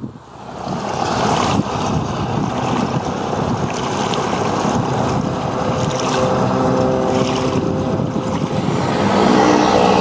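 Floatplane engine and propeller running on the water, its steady engine tone growing plainer and louder in the second half, with wind noise on the microphone.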